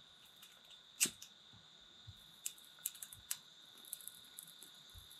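Scattered sharp clicks and knocks, the loudest about a second in and a handful more around the middle, over a faint steady high-pitched insect drone.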